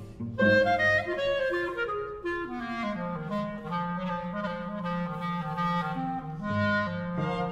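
Solo clarinet playing a melody over a string orchestra holding sustained accompanying notes. The clarinet phrase comes in about half a second in, after a brief break.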